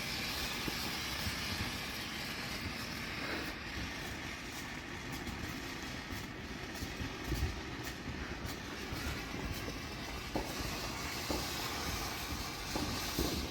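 Steady hiss of a homemade chlorate-and-hexamine rocket motor burning, with a faint low rumble and a few light crackles.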